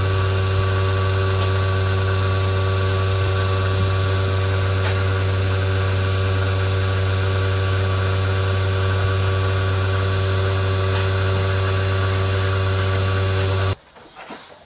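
A motor running with a loud, steady hum that does not change. It cuts off abruptly about a second before the end.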